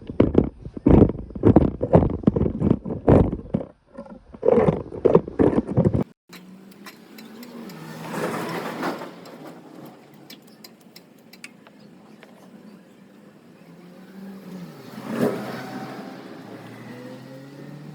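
A voice for the first six seconds. Then a Hero Glamour motorcycle's single-cylinder engine is running at idle, surging briefly twice and rising in pitch near the end as the throttle is opened.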